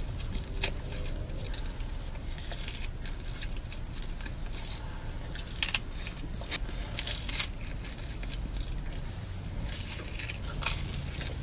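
A man biting into and chewing a pickle pizza slice close to the microphone: irregular wet crunches and clicks from the crisp crust and pickles, with a steady low hum underneath.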